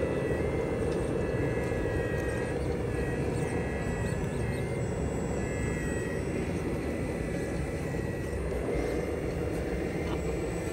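1:14 scale RC CAT 374F excavator working as it digs: a steady electric whine over a low hum. The whine steps in pitch a few times as the boom and bucket are moved.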